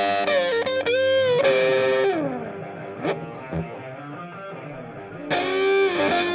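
Background music led by distorted electric guitar with sliding notes, loud at first, softer in the middle, then loud again about five seconds in.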